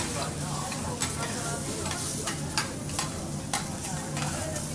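Food sizzling steadily on a teppanyaki griddle, with a few sharp clicks over it.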